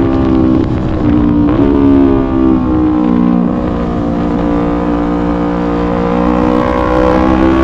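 Yamaha YZF-R3's parallel-twin engine running under way, heard from on board: its pitch jumps a few times in the first couple of seconds, then sags and climbs slowly again as the bike pulls.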